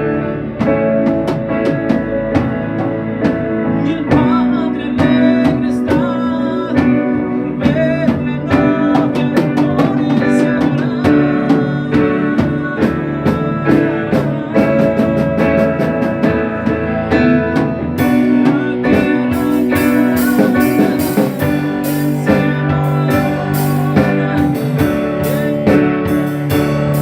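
Instrumental guitar music with drum backing: a lead guitar carries the melody with sustained and bent notes over a steady beat. About two-thirds of the way in, the drums get brighter and busier in the high end.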